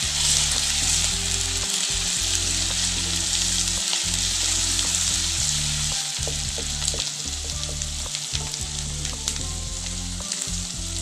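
Onions and ginger-garlic paste sizzling in hot oil in a nonstick wok, stirred with a wooden spatula that scrapes and taps against the pan, with a steady crackling hiss.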